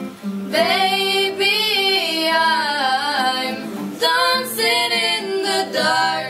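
Girls' voices singing a sustained, gliding melodic line to acoustic guitar accompaniment, with a short break about four seconds in.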